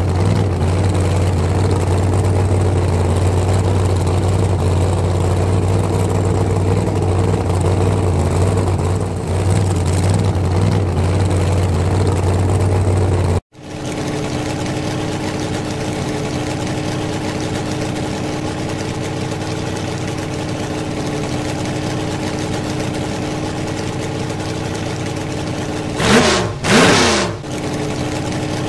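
Engine sound effect laid over the toy trucks: a steady engine idle that cuts off suddenly about halfway, then another steady idle. Near the end come two short swooping sounds, louder than the idle.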